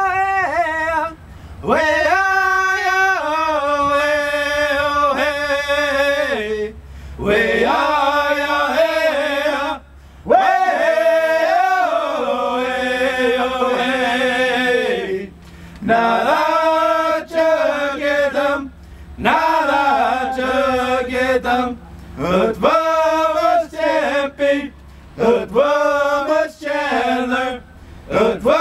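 A man's voice singing a slow chant in long phrases of held and gliding notes, with short breaks between them.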